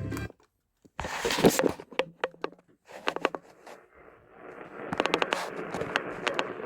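Radio receiver static: irregular crackles and sharp clicks, with a hiss that builds from about four seconds in.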